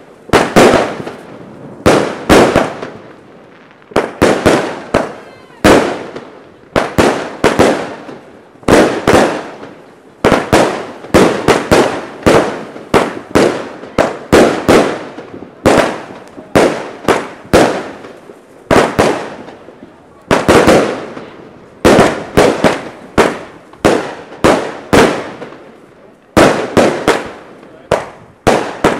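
Maxx Line 'Colorfull Explosions' consumer firework cake firing shot after shot, about one or two sharp bangs a second, each trailing off with a scatter of smaller crackling pops.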